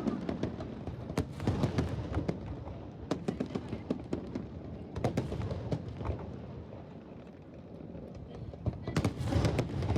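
Fireworks going off: a run of sharp bangs and crackles over a low rumble, easing off in the middle, then a close flurry of reports near the end, with crowd voices underneath.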